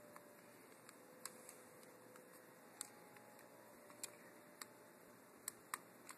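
Small screwdriver working the terminal screws of a thermostat wall plate: about half a dozen faint, sharp clicks spread unevenly over quiet room hiss.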